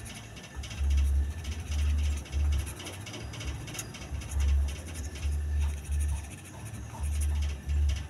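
Background music with deep bass notes that come and go every half second to a second.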